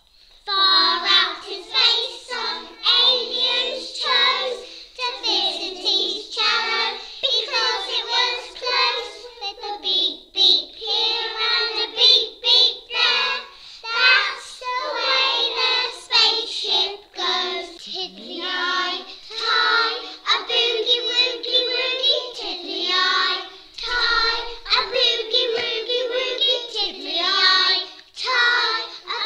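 Young children singing a song.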